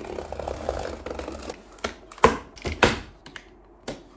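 Knife slicing through packing tape along a cardboard box seam: a rasping drag for the first second and a half, then a few sharp snaps and taps.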